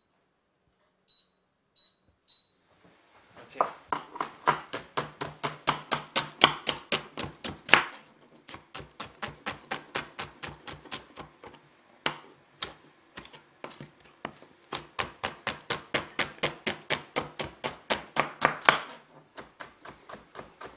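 A few short electronic beeps from the hob's touch controls, then a chef's knife slicing onion on a wooden chopping board in quick, even strokes, about three or four a second, pausing twice.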